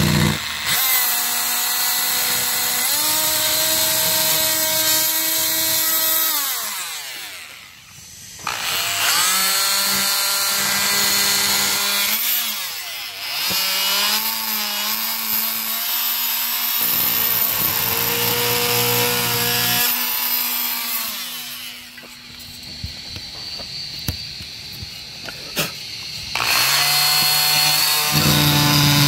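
Oscillating multi-tool running, its blade cutting into the motorhome's wall to square off a corner of the tail-light opening; the motor whine shifts in pitch as the load changes. It dies away and starts again about eight seconds in, runs quieter for a few seconds after about twenty-two seconds, then comes back up to full speed.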